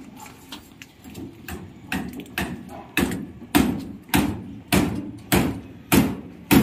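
Repeated hammer blows on slab formwork (shuttering), a steady rhythm of sharp knocks about every 0.6 s, louder from about two seconds in.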